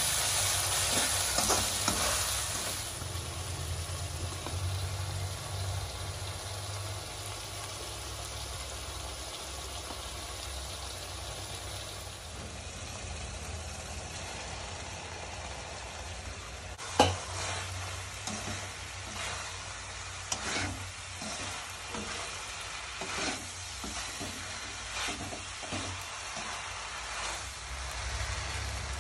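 Prawns and masala frying with a steady sizzle in a kadai while a metal spatula scrapes and knocks against the pan, stirring. The knocks come in a string through the second half, with one sharp, loud clank about seventeen seconds in.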